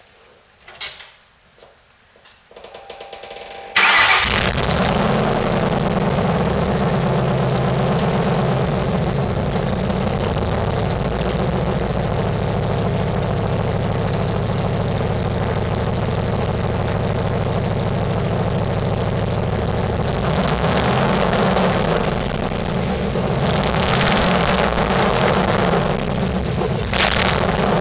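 Ford Crown Victoria Police Interceptor's 4.6-litre V8 cranked by the starter and catching about four seconds in, then running steadily at idle with an exhaust leak. A few faint clicks come before the cranking.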